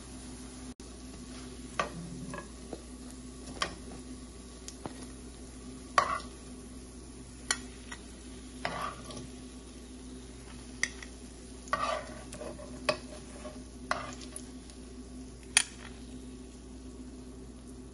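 Lentil (masoor dal) kebabs sizzling steadily in shallow oil in a non-stick frying pan. About ten sharp clicks and scrapes come from a metal spatula striking the pan as the kebabs are lifted out.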